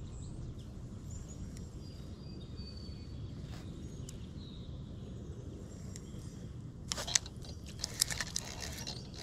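Outdoor lakeshore ambience: a steady low rumble with a few faint bird chirps, then a run of sharp clicks and crackles over the last two seconds or so.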